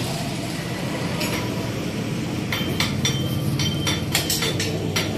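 Light metallic clinks and taps from a motorcycle crankshaft and connecting rod being handled on a crankshaft stand, coming in a quick irregular run from about halfway in, some with a short ring. A steady low hum sits underneath.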